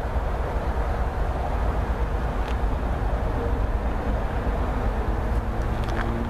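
Diesel locomotive rumbling as an MBTA HSP-46 commuter locomotive approaches: a steady, heavy low rumble, with the engine's hum coming through as clearer tones near the end. A couple of faint clicks.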